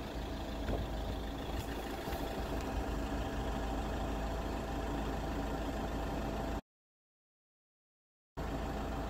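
Vehicle engine idling with a steady hum; the sound cuts out completely for nearly two seconds about two-thirds of the way through, then the idle resumes.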